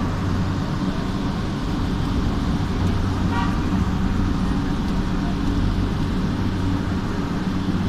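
Light-rail train running, heard from inside the car: a steady low rumble, with one brief high tone about three and a half seconds in.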